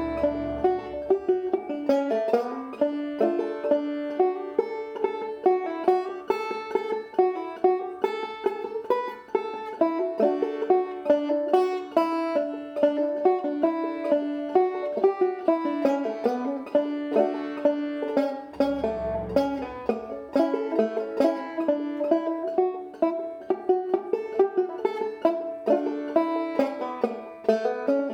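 Five-string banjo played clawhammer style, an 11-inch walnut Wayne Sagmoen banjo with a goatskin head: a continuous, even run of plucked notes and brushed strums through an old-time tune.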